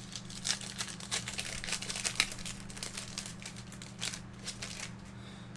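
Trading-card pack wrappers crinkling as they are handled and torn open: a run of dense, irregular crackles that thins out near the end.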